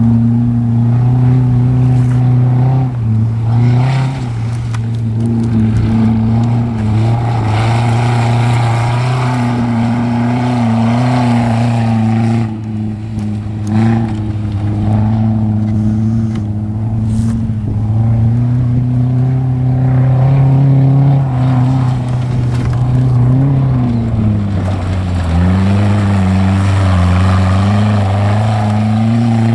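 Mazda Protegé5 rally car's four-cylinder engine running hard around a dirt track, a steady high-revving drone whose pitch dips a few times, most deeply a little before the end, then climbs back.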